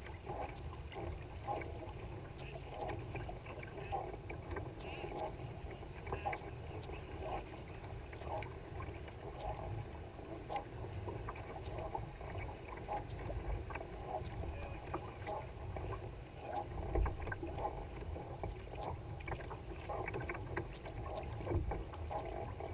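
Kayak paddle blades dipping and splashing in the water about once a second, with water lapping and dripping along the hull of a tandem kayak. Low wind rumble on the microphone runs underneath.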